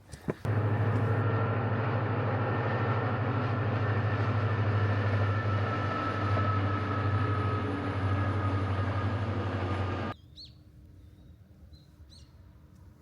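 A train running past on the rails: a heavy, steady rumble with a faint high squeal over it. It starts abruptly half a second in and cuts off suddenly about ten seconds in.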